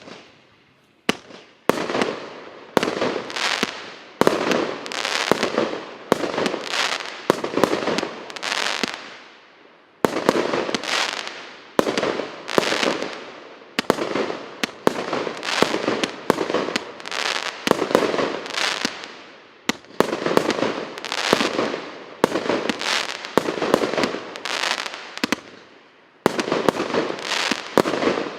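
An 88-shot consumer firework cake with whistle effects, firing in rapid succession. Each sharp launch, roughly one or two a second, is followed by a hissing whistle tail that fades before the next shot.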